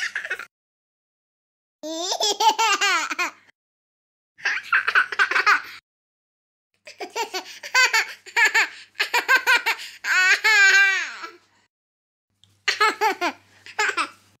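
High-pitched laughter in about six short bursts, each a second or two long, with sudden silences between them.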